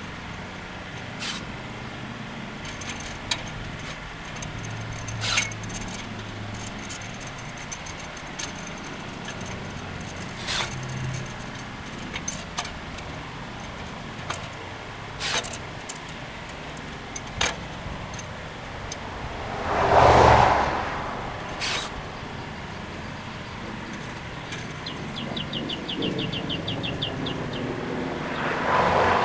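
Sharp single snips every few seconds as zip ties are cut off the fence wire, with a short run of fine ticks about 25 seconds in. A car passes, swelling and fading about 20 seconds in, and another vehicle approaches near the end.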